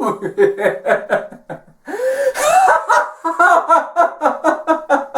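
A person laughing in quick, rhythmic ha-ha-ha pulses, a deliberate laughter-yoga laugh pushed from the belly. There is a short breath pause about a second and a half in.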